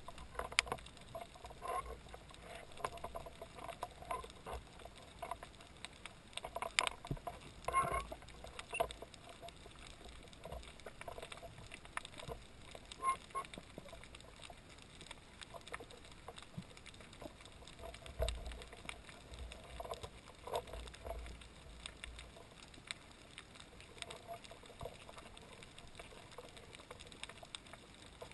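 Muffled underwater sound through a camera's waterproof housing: scattered irregular clicks and knocks over a low, steady water noise, with a low rumble of water movement a little past the middle.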